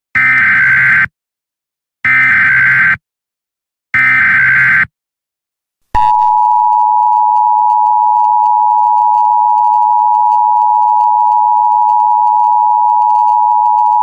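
Emergency Alert System alert opening: three one-second bursts of the SAME header data tones, each a buzzy electronic warble, about a second apart. Then, about six seconds in, the EAS two-tone attention signal starts, a harsh steady dual tone held for about eight seconds.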